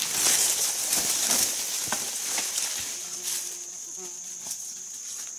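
Steady high-pitched insect drone from the forest, under crunching and rustling footsteps through dry leaf litter and bamboo undergrowth. The footsteps are loudest in the first couple of seconds, then quieten.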